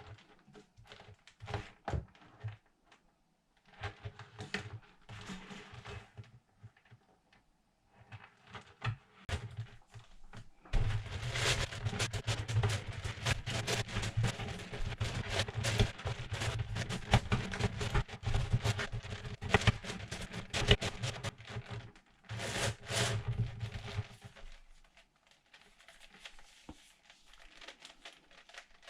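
Packaging being handled while unboxing a 17x17 puzzle cube: crinkling and rustling of wrapping with small knocks and clicks, coming in short bouts and then a long busy stretch of about a dozen seconds in the middle.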